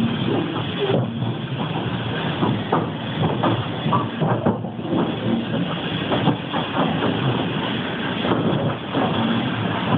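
A passenger train running slowly, heard from inside the carriage: a steady rumble with frequent irregular clanks and knocks of the wheels and couplings on the track.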